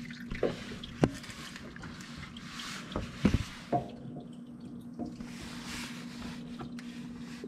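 Scattered light knocks and clicks of a spin-on oil filter being handled under a car, over a steady low hum.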